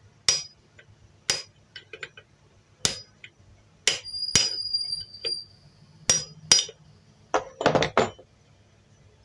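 Hammer blows on the end of a jammed sewing machine shaft: about eight sharp metal strikes at uneven intervals, one leaving a brief ring, with a quick flurry near the end. The shaft has seized and is being knocked free.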